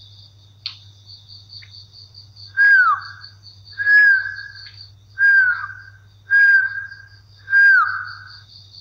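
A whistled call repeated five times, each a short note sliding downward, about one a second, over crickets chirping steadily and a low hum.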